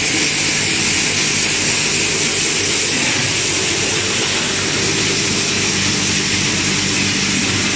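Plastic crusher machinery running steadily: a loud, constant hiss with a low hum underneath.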